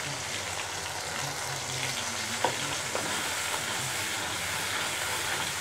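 Puréed tomato sizzling in hot oil and ginger-garlic paste in a frying pan, stirred with a spoon, with a light click of the spoon against the pan about two and a half seconds in.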